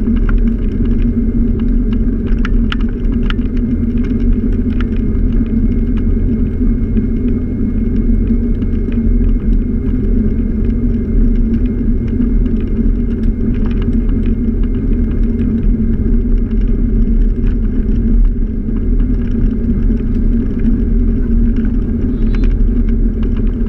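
Steady, loud rumble of a scooter riding along a paved street, picked up by a GoPro mounted on it: ride noise from the vehicle, road and wind, with a few faint ticks.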